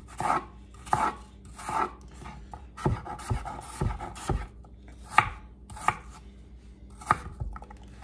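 Kitchen knife chopping peeled Granny Smith apple into small dice on a wooden cutting board, each stroke cutting through the crisp apple and knocking the board. The strokes are irregular, with a quick run of them in the middle and a few sharper knocks later.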